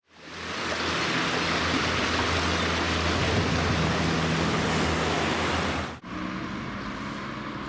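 Small stream rushing over rocks in a stone channel, a steady noisy rush that fades in and cuts off suddenly about six seconds in. Quieter road ambience follows.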